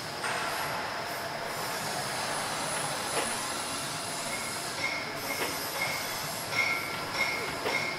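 Steam-railway sound effects from an HO-scale model layout: a steady hiss with a few sharp metallic knocks. From about halfway, a short high squeal repeats every half second or so.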